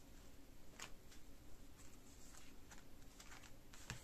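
Oracle cards being drawn from a fanned deck and laid down on a cloth-covered table: several faint, soft clicks and slides of card against card, irregularly spaced.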